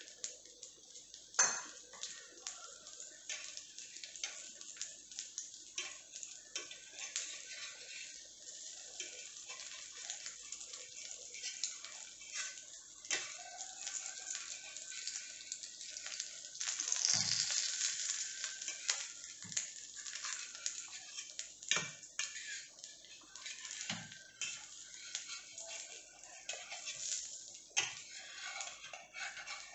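Egg omelette sizzling in oil on a tawa, with a metal spatula now and then scraping and knocking against the pan. The sizzle swells louder for about a second halfway through.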